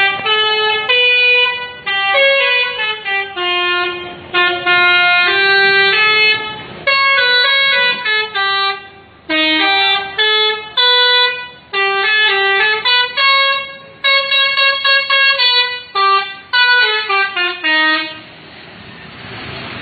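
Bus's multi-tone 'telolet' air horn playing quick melodic phrases, note after note with short gaps between the runs. It stops about two seconds before the end, leaving a steady rushing noise.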